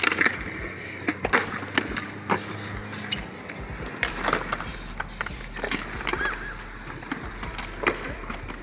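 Skateboards at a concrete skatepark: wheels rolling on the concrete, broken by a series of sharp wooden clacks at irregular intervals as boards pop and land.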